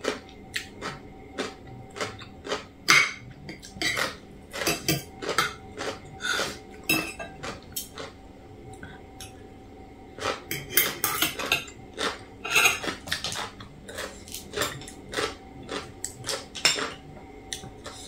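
Metal spoon and fork clinking and scraping against a metal plate while eating papaya salad, in irregular clicks that come thickest a few seconds in and again just past the middle.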